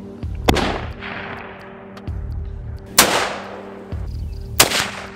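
Three rifle shots: one about half a second in, one at about three seconds and one near the end, each ringing out and fading over about a second.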